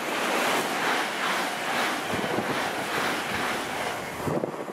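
Electric multiple-unit train passing at speed on the near track: a loud rush of wheel and air noise, loudest about half a second in and dying away near the end, with wind buffeting the microphone.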